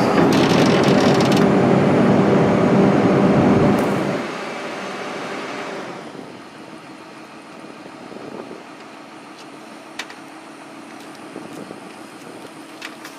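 Heavy diesel engine of a 240D excavator running loudly, then dropping away sharply about four seconds in and fading further by six seconds to a faint steady hum, with a single click near ten seconds.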